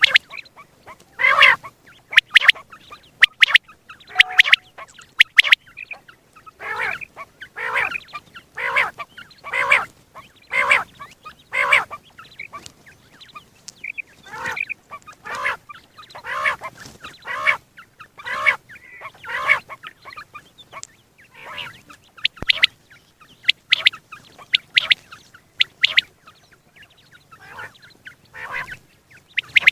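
Common quail calling over and over, short sharp calls about one a second, with a brief lull about two-thirds of the way through.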